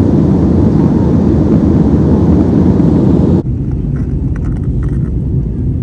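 Steady rumble of a jet airliner's engines and rushing air heard inside the passenger cabin in flight. About three and a half seconds in it drops suddenly to a quieter, duller cabin noise.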